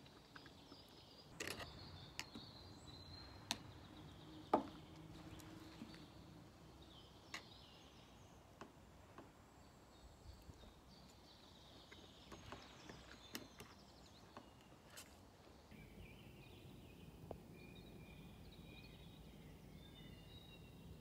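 Quiet forest ambience with faint birdsong, broken by a few sharp clicks in the first five seconds.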